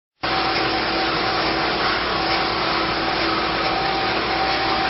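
A steady machine noise: a motor running with an even rushing sound and a constant hum, starting abruptly just after the start.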